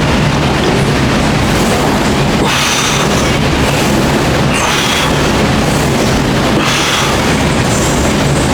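Loud background music with heavy bass and drums, and a pattern that repeats about every two seconds.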